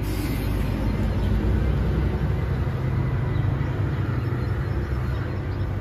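Steady low rumble, even and unbroken throughout.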